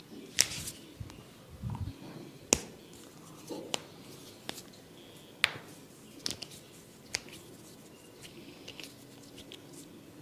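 Sharp, isolated snaps from a barber's hands during a head massage, about six of them spread irregularly a second or so apart, with quiet handling in between.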